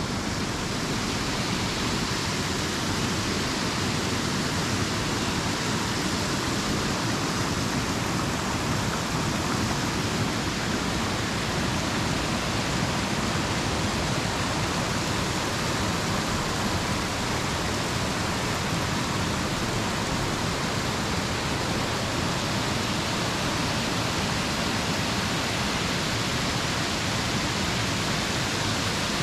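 River water pouring steadily over a small weir, a constant rush of churning water with no change in level.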